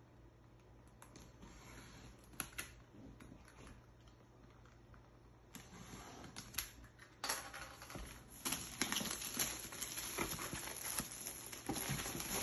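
Drone box packaging being handled and opened by hand: scattered small clicks and taps at first, then a denser rustling, scraping and crinkling from about halfway in that grows louder and busier toward the end.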